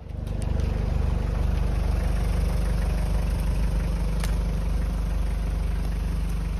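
Toyota Hiace van's engine idling steadily.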